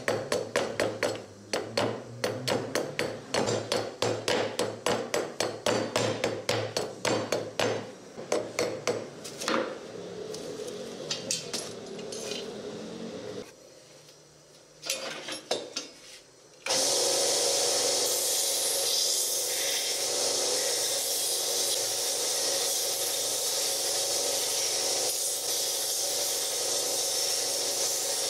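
Hatchet chopping and shaving a wooden handle in quick repeated strikes, about three a second, thinning out about halfway through. Then a belt grinder starts and runs steadily as the wooden handle's tip is sanded on the belt.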